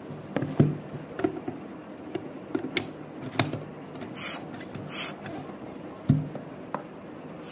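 Hard plastic toy parts knocking and clicking as a tree-trunk tube is pushed into a mushroom-shaped base, with two short hisses around the middle.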